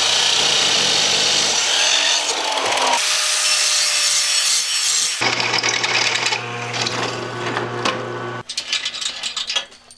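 Abrasive chop saw cutting steel for about three seconds, then an angle grinder on steel. After that comes a drill boring into a wooden block, with a steady motor hum, and a run of clicks near the end.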